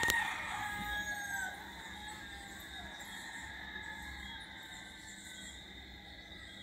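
A rooster crowing, the call falling off in pitch and ending about a second and a half in, followed by quieter steady early-morning background sound.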